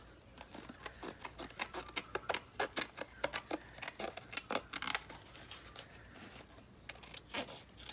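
Scissors snipping through cardboard: a quick run of short crisp cuts for the first five seconds or so, then a few scattered snips.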